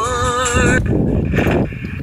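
Grundig G2 Reporter portable radio's speaker playing an FM station: a held, wavering sung note that cuts off under a second in as the radio is tuned up the band. A rough, uneven low noise follows.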